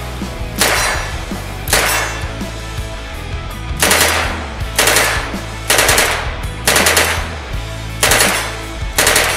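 Unsuppressed 9mm Uzi submachine gun firing short rapid bursts, about nine of them roughly a second apart. Rock music plays underneath.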